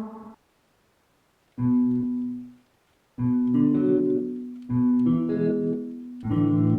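Guitar-like preset from the ANA 2 software synthesizer playing four chords about a second and a half apart, each struck and left to ring, after a short pause.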